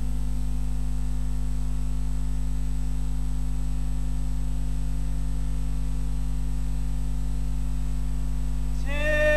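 Steady electrical mains hum with no music playing. Near the end a solo singing voice begins.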